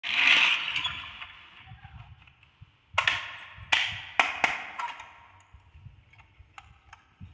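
Balls clacking along a handmade marble run: a loud ringing clack at the start, then a run of sharp knocks about three to four and a half seconds in, dying away to lighter ticks.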